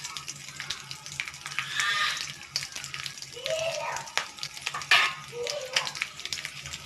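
Mustard seeds and cumin crackling and popping in hot oil with curry leaves and green chillies, a spice tempering for potato filling: many sharp pops. A voice sounds faintly in the background now and then.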